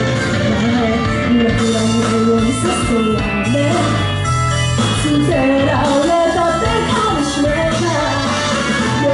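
A woman singing into a hand-held microphone over loud rock music with a steady bass, amplified on a club stage.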